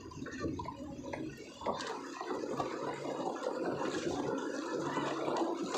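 Shallow river water rushing over a stony bed, a steady noisy wash that gets louder about a second and a half in, with a faint low hum underneath.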